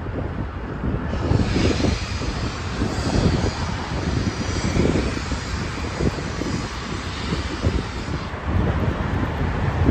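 Autorack freight cars rolling past on the track, a steady low rumble of wheels with wind buffeting the microphone. A brighter hiss rides on top from about a second in and cuts off abruptly a little after eight seconds.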